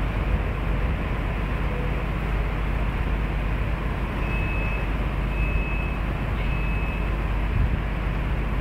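Diesel locomotive engine idling with a steady low rumble. A little past the middle come three short, high beeps of equal length, evenly spaced.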